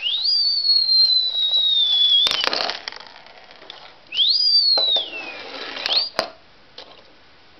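Mouth-whistled falling-object sound effect: a high whistle jumps up and then slides slowly down, cut off about two seconds in by a short crashing noise. A second falling whistle follows about four seconds in, then a quick rising whistle and a sharp click near the six-second mark.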